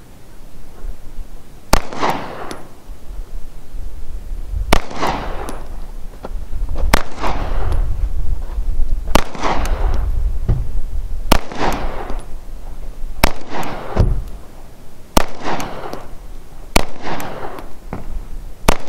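A 9mm TriStar T-120 pistol firing a slow string of about ten single shots of 115-grain ball ammunition, roughly two seconds apart. Each shot is a sharp crack with a short echoing tail.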